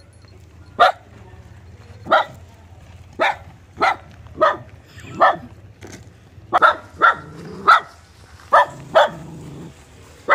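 A dog barking repeatedly, about a dozen short, sharp barks at uneven intervals, some in quick pairs.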